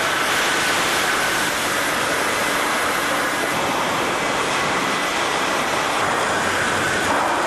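Steady, even rushing hiss of steel-fabrication shop noise, with a faint high tone coming and going.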